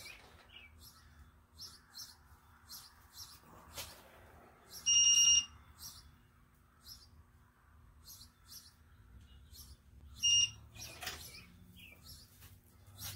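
Two electronic beeps from a torque wrench signalling that the set torque has been reached on the cylinder head bolts: a longer beep about five seconds in and a short one about ten seconds in. Ratchet clicks and tool scrapes come between them.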